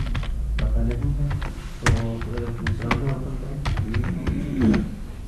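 Computer keyboard typing: a run of quick, irregular keystrokes.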